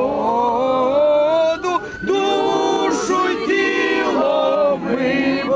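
A group of voices singing a slow, unaccompanied chant with long held notes: a funeral hymn for the dead.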